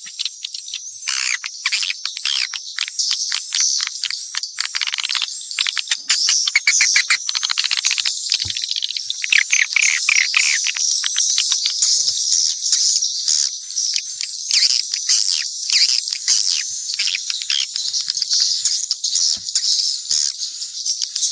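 Swiftlets (burung walet) twittering in a dense, continuous stream of rapid high chirps and clicks. It is a mixed swiftlet call recording of the kind played as a lure sound to draw swiftlets into a nesting house.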